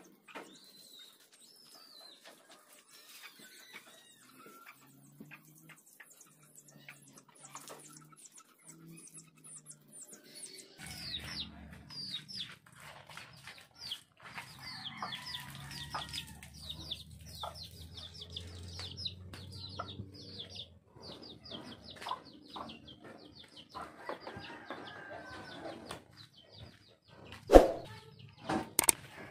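Chickens clucking and small birds chirping in a yard, with a low hum through the middle. Near the end comes one loud sharp click from a subscribe-button overlay.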